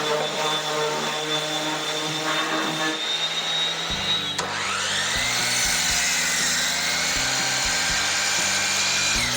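Background music over a power saw. About halfway through, the saw's motor spins up in a rising whine, then runs at a steady pitch while cutting drawer boards, and begins to wind down at the very end.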